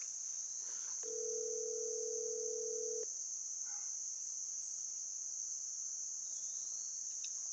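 A steady high-pitched insect chorus. About a second in, a phone's ringback tone sounds once for about two seconds: an outgoing call ringing on the other end, heard through the phone's earpiece.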